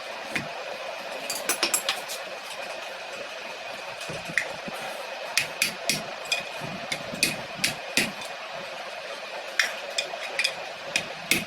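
Hammer tapping on metal in short quick runs of sharp strikes, busiest in the second half, over a steady background hum with a thin high tone.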